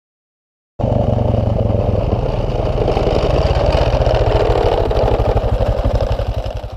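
Honda Foreman ATV on snow tracks, its single-cylinder four-stroke engine running with an even low pulse as it drives up and passes close by. The sound cuts in suddenly about a second in and fades away at the very end.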